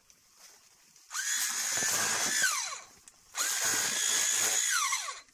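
Handheld motorised coffee harvester run twice, each time for about a second and a half: the motor whine climbs quickly to a steady pitch, holds, and glides down as it stops, while the tines work a coffee branch.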